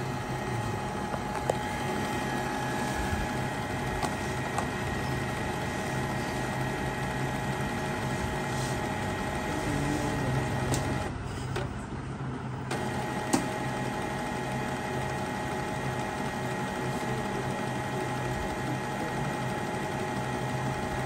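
Canon ink-tank printer running its first-time setup, its motors and pump whirring steadily to draw ink through the tubes, with a few light clicks. About eleven seconds in the higher whir drops out for a second or two, then resumes.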